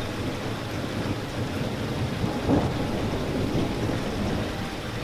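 Steady rain falling, with a low continuous rumble underneath and one brief louder spot about halfway through.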